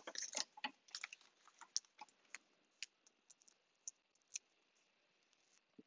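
Faint, scattered small clicks and crackles of foam adhesive dimensionals being picked off their backing sheet by fingers. They come thickly for the first couple of seconds, then more sparsely.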